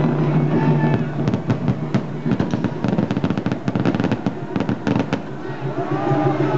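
Aerial fireworks bursting overhead, with a rapid run of sharp crackles from about a second in until about five seconds in.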